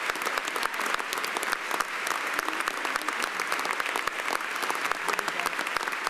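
A room full of people applauding steadily, many hands clapping at once.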